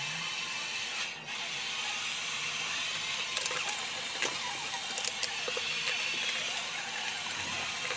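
Steady hiss with scattered faint light taps.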